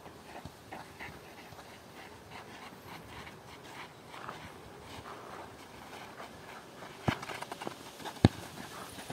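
Faint scuffing footsteps on a sandy dirt pitch, then two sharp thuds of a football being kicked, a little over a second apart, the second louder.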